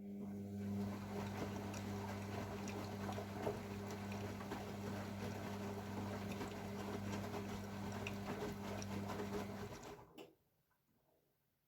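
AEG Lavamat W 1450 washing machine tumbling a wet load of towels: the drum motor hums steadily while the laundry sloshes and patters for about ten seconds, then the motor stops near the end for the pause between drum turns.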